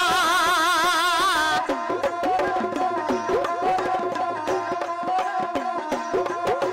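Dhadi folk music. A long held note wavers in a wide vibrato, then about a second and a half in a dhadd hand drum starts playing quick strokes that bend up and down in pitch, over a steady sarangi line.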